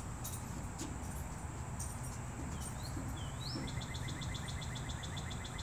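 Outdoor insect and bird sounds: a steady high insect drone, two short rising bird chirps about halfway through, then a fast, even trill of crickets starting past the middle.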